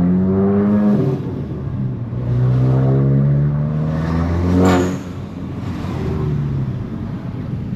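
Volkswagen Golf GTI Mk8's turbocharged 2.0-litre four-cylinder, fitted with an aftermarket Milltek exhaust, accelerating through the gears: the revs climb for about a second, drop at a shift, then climb again for several seconds. A short sharp burst follows and the engine settles to a lower, steady drone.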